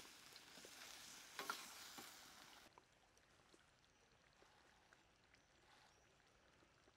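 Faint sizzling of a crocodile stir-fry in a wok as a spatula stirs and scrapes the pan, with a sharp clack about a second and a half in. The sizzling cuts off suddenly well before halfway, leaving near silence with a few faint ticks.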